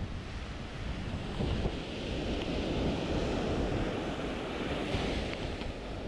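Strong wind buffeting the microphone over surf breaking and washing on a sandy beach, the noise swelling about a second and a half in.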